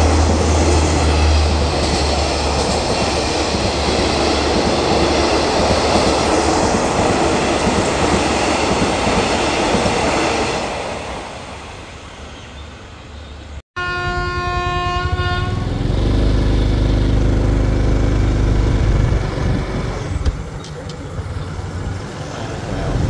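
A passenger train running through a station, its wheels and carriages rushing past loudly and then fading away as it goes. After a cut, a diesel locomotive's horn sounds once for under two seconds, followed by the locomotive's diesel engine rumbling steadily.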